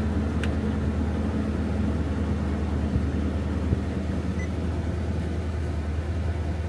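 Car engine idling with the air conditioning running, a steady low hum. A single click comes about half a second in.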